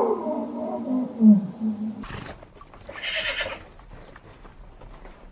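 A low, drawn-out animal call with bending pitch ends about two seconds in. Then a horse gives a short whinny, with a few faint knocks around it.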